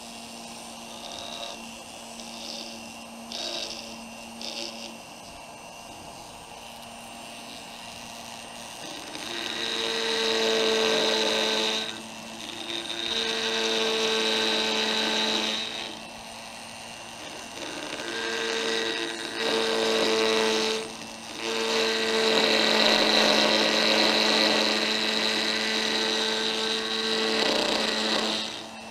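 Foredom flex-shaft rotary carving tool running, its burr grinding into the wooden head of a lemon reamer. The motor hums steadily; for the first several seconds there are only a few short touches, then the burr cuts in long passes, with brief breaks as it is lifted off the wood.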